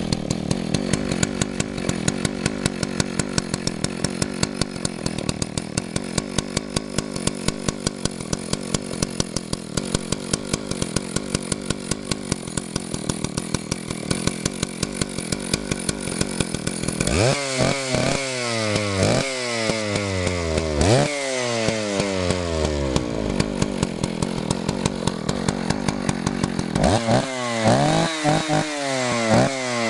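Vintage Husqvarna 185 CD two-stroke chainsaw idling steadily. A little past halfway it is blipped up to high revs and let fall back three times in quick succession, then twice more near the end.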